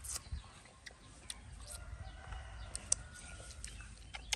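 Domestic chickens calling faintly, one drawn-out call in the middle, with a few sharp clicks scattered through.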